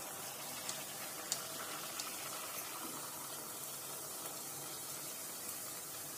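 Jalebi batter frying in hot ghee: a steady, quiet sizzle with a few faint pops in the first couple of seconds.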